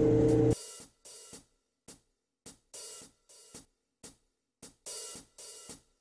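Wood lathe running steadily with a bowl spinning on it, cut off abruptly about half a second in. Then a sparse drum beat of hi-hat and cymbal hits with drum strikes, irregularly spaced.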